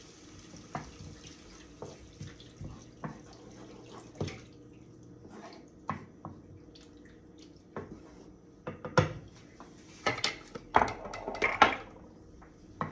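Stock pouring into a skillet of roux and sautéed vegetables while a wooden spoon stirs, with scattered light knocks of the spoon against the pan. Near the end comes a louder burst of splashing and clatter.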